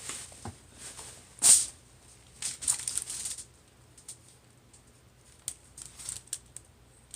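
Short crackling and rustling bursts from seafood and its wrappings being handled close to the microphone: one loud burst about a second and a half in, a cluster of smaller ones around three seconds, then a few faint clicks.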